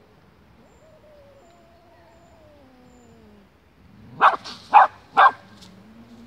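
A West Highland white terrier barks three times in quick succession, sharp and loud, about four seconds in. Before the barks there is a faint, drawn-out whine that slides down in pitch.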